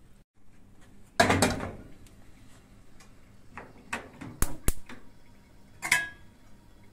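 Cookware and dishes being handled: a clatter a little over a second in, four sharp knocks around the middle, and a clink that rings briefly near the end.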